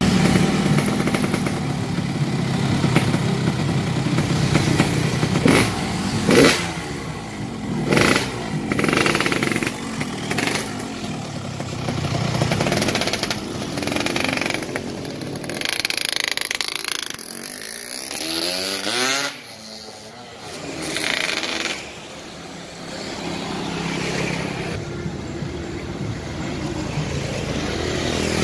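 A tuned Yamaha RX-King's two-stroke single-cylinder engine revving up and down on a test ride, among passing road traffic. A few sharp pops come in the first third.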